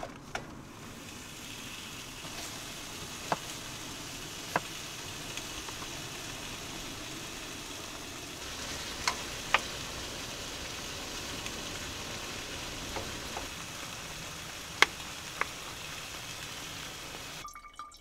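Ground meat sizzling steadily in a skillet on a wood stove, with a handful of sharp clicks scattered through it.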